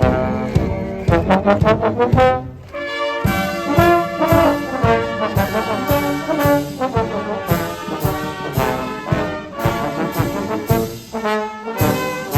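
Military marching band playing a march: brass melody over a steady drum beat of about two strokes a second, with a short break about two and a half seconds in.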